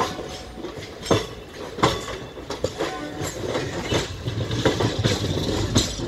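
Railway carriages rolling on the track, their wheels clacking over rail joints in irregular knocks over a low rumble.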